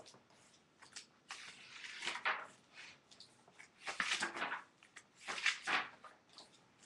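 Several short rustling and knocking handling noises, a few bursts a second or two apart, as objects are moved about on a desk.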